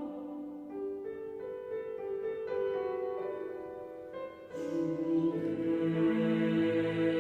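A piano plays a soft passage of separate notes. About four and a half seconds in, a choir comes back in, singing held chords over it.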